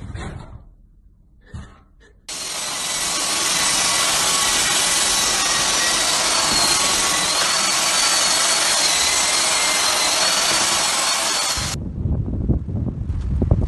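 Cordless stick vacuum cleaner running steadily with a high motor whine, starting abruptly about two seconds in and cutting off near the end.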